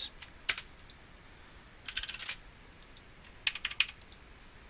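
Computer keyboard typing in short runs: a single keystroke about half a second in, a quick run of several keys around two seconds, and another short run near three and a half seconds.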